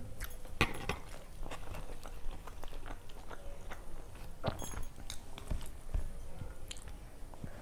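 Close-miked eating with the hand: wet, sticky clicks and smacks of fingers mixing rice and curry on a steel plate, along with chewing.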